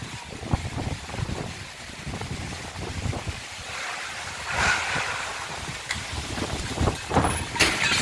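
Strong gusty wind buffeting the microphone, with a louder rush of wind about halfway through and again near the end.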